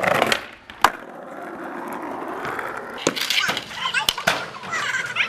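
Skateboard: a sharp clack of the board about a second in, then wheels rolling steadily on pavement, followed by several more board clacks.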